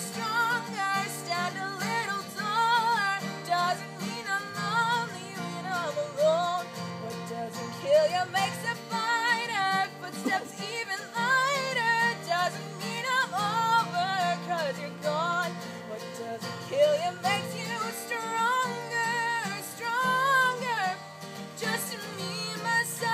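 A woman singing with her own acoustic guitar accompaniment, the guitar strummed in steady chords under the melody.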